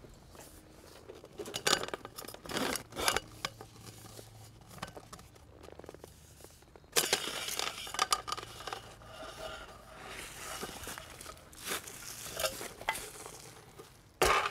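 Metal clanks and clicks from a hand-lever post puller clamped to an old metal lamppost, working the post up out of the ground. A longer scraping rustle about seven seconds in, and a loud knock near the end.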